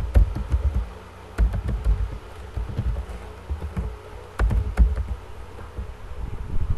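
Typing on a computer keyboard: bursts of sharp key clicks with dull low thuds, separated by short pauses.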